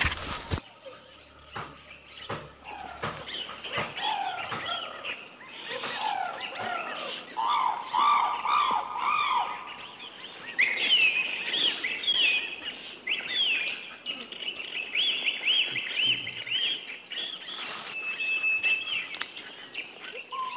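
Several forest birds chirping and singing, with many quick rising and falling calls; past the middle one bird repeats quick falling notes, and a steady whistled note comes near the end. A brief loud burst of noise sounds at the very start.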